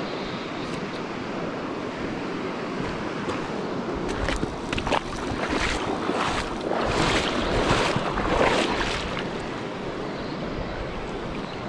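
Shallow river running over stones, a steady rush of water, with a run of louder noisy swishes from about four to nine seconds in.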